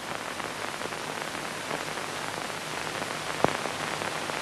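Steady hiss of an old film soundtrack, with a few faint clicks and one sharper click about three and a half seconds in.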